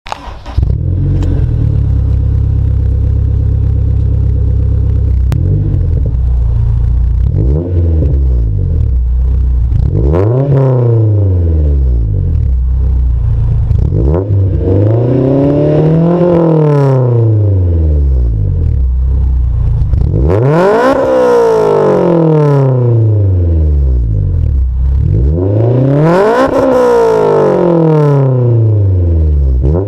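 Honda S2000's four-cylinder engine breathing through an Invidia cat-back exhaust with a test pipe, idling steadily and then revved about five times, each rev climbing in pitch and dropping back to idle, the later revs higher.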